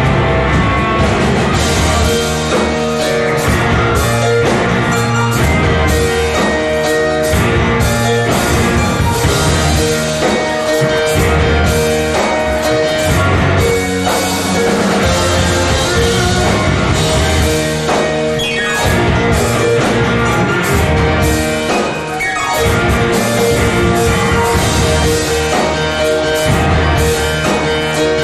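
Rock band playing live, loud and dense: electric guitar and drum kit driving a full-band passage.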